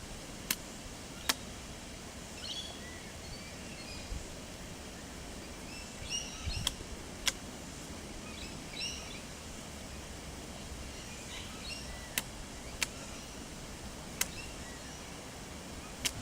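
Faint chirps of small birds come in a few short clusters over steady outdoor background noise, cut through by about eight sharp, isolated clicks.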